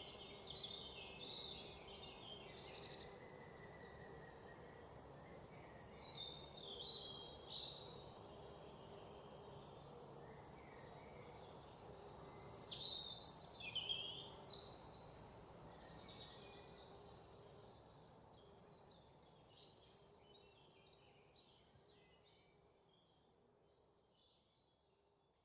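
Forest ambience: several birds singing and chirping in quick, overlapping phrases over a steady background hiss, fading out near the end.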